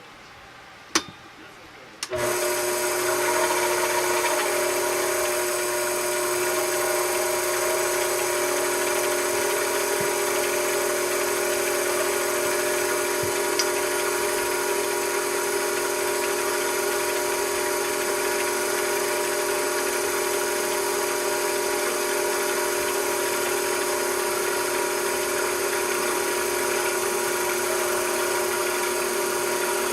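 A single click, then a machine tool's motor starts about two seconds in and runs at a constant speed with a steady whine.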